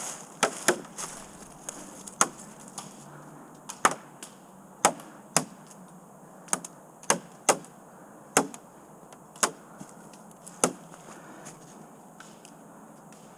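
Airsoft guns firing single shots: about a dozen sharp pops at uneven intervals, some in quick pairs.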